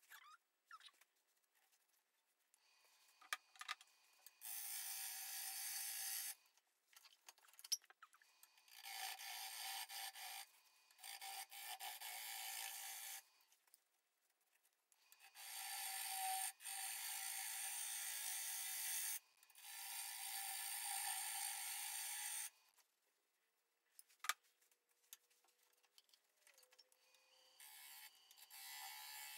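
Turning gouge cutting the outside of a spinning green spalted sugar maple bowl blank on a lathe, a dry scraping hiss. It comes in about five passes of two to four seconds each, with short pauses between.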